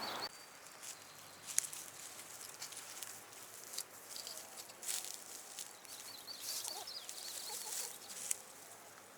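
Quiet rural ambience: scattered light ticks and a few faint high bird chirps, with a short run of chirps about seven seconds in.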